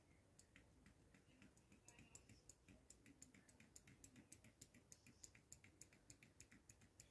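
Faint, quick clicking and tapping, several clicks a second, from hands working at a foundation bottle and its cap.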